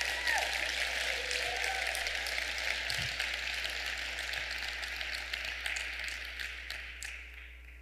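Audience applauding, with a few cheers in the first two seconds; the clapping dies away near the end.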